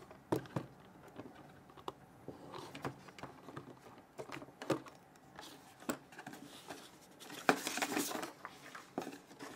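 Cardboard box and clear plastic packaging tray being handled: scattered light taps and clicks, with a louder rustling scrape about seven and a half seconds in.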